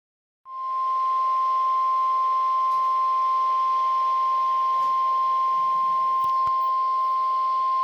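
NOAA Weather Radio 1050 Hz warning alarm tone: one unbroken, steady beep over radio hiss, starting about half a second in, the signal that a warning (here a flood warning) follows.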